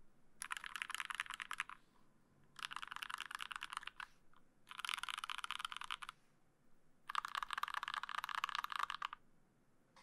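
GSKT-00 60% mechanical keyboard with lubed Fei switches, an aluminium plate and GMK keycaps, typed on in four bursts of rapid keystrokes with short pauses between them.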